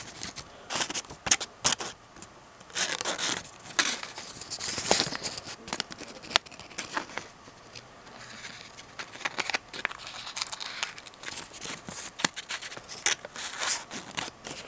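Paper and cardboard rustling and crinkling as they are handled close to the microphone, with scattered sharp clicks and knocks.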